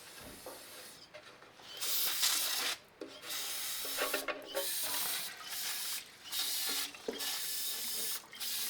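Pressurised spray hissing in about six short bursts with brief gaps between them, cleaning out the oil pickup screen of a Farmall Super C tractor.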